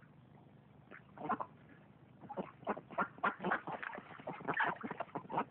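Ducks calling: a quick run of short quacking calls that begins about a second in.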